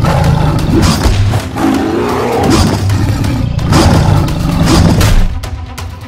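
Big cat roaring and growling, a tiger-type sound effect, over background music; it eases off about five seconds in.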